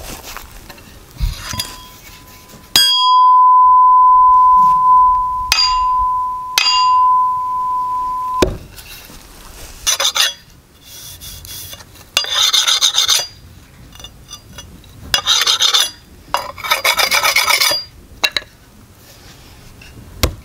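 A loud, clear ringing tone, struck three times and then cut off suddenly. After it come four or five short rasping strokes of a round puck sharpening stone along a steel axe blade.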